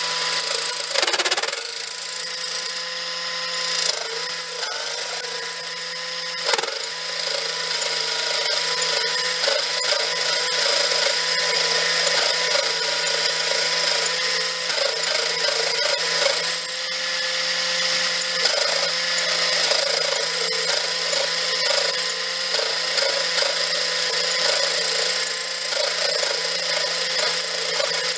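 Unimat 1 toy lathe running, its small motor and spindle turning as the tool cuts a short aluminium rod: a steady whine over the scratchy hiss of the cut. The whine drops out briefly twice in the first seven seconds.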